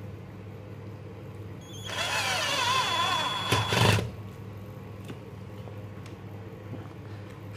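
A XENON XN-CDD505 cordless drill-driver's motor whines for about two seconds as it turns a screwdriver bit in a screw in teak wood, set to the lowest speed and torque. Its pitch wavers under the load, and the run ends in a few sharp clicks before the motor stops.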